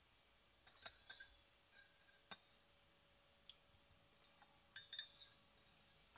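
Metal fork scraping and clinking against a ceramic salad bowl, in scattered short clicks and scrapes, a cluster about a second in and another from about four seconds on.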